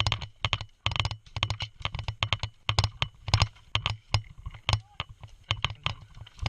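Quick footsteps of a player moving over the ground, a rapid, uneven series of short crunching knocks.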